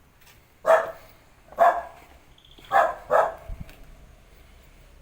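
A dog barking, four short barks over about three seconds, the last two close together.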